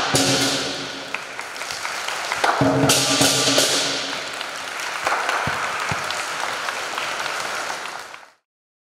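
Southern lion dance band of drum, gong and cymbals striking loud ringing crashes twice, then the audience applauding. The sound cuts off suddenly near the end.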